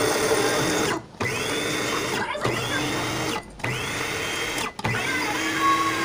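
Small electric food processor grinding Cheetos into crumbs, run in short pulses: about a second of motor noise at a time, stopped briefly four times. Each time it starts again, the whine rises in pitch as the blade spins up.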